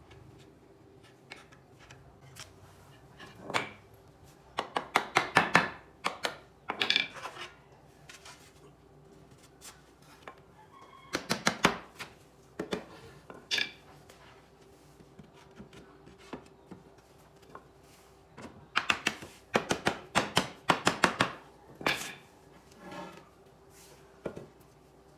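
Bursts of quick knocks on wood, about five a second, coming in several runs with pauses between them, as from hammering in furniture making, over a faint steady hum.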